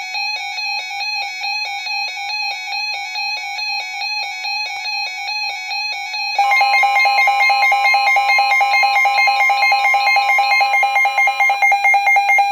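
Weather alert radios sounding their warning alarms: a fast, pulsing electronic beep, with a second, louder alarm joining about six seconds in. It signals a Special Marine Warning being received.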